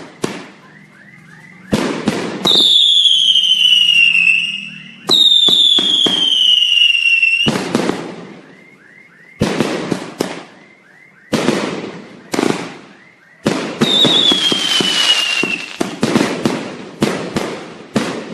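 Fireworks going off in a series of sharp bangs, some with crackling tails. Three long whistling shells fall in pitch as they fly: one early on, one just after it and one about two-thirds of the way through.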